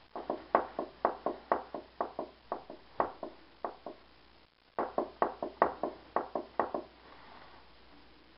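Quick sharp taps or knocks, about four a second, in two runs with a brief break in the middle.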